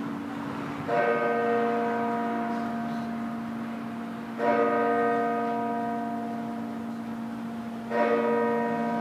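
Rochdale Town Hall clock tower's hour bell striking the hour at six o'clock: three strokes about three and a half seconds apart, each ringing on and slowly dying away over the bell's lingering low hum.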